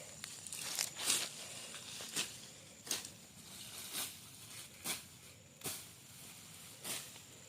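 A steady series of short rasping strokes, roughly one a second, like a hand tool working through vegetation or soil.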